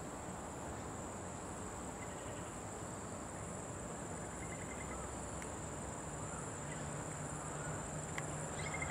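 Steady high-pitched chorus of insects, with a few faint short chirps over it.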